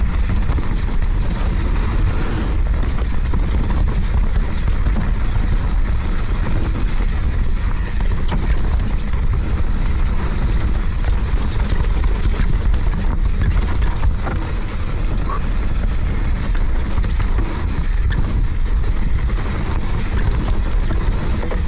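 Radon Swoop 200 full-suspension mountain bike ridden fast down a dirt trail: a steady rush of wind buffeting the action camera's microphone over the rumble of knobby tyres on dirt, with a few sharp clicks and rattles from the bike.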